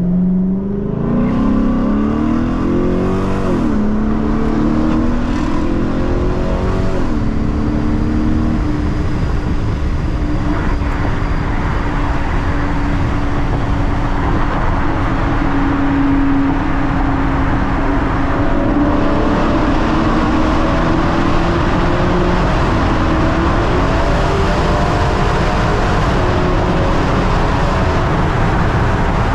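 E85-tuned 2012 Hyundai Genesis R-Spec's 5.0-litre V8 heard from inside the cabin, accelerating hard from a stop. Its pitch climbs and drops at about three and a half and seven seconds as the transmission upshifts. It then runs steadily at cruising speed through a tunnel.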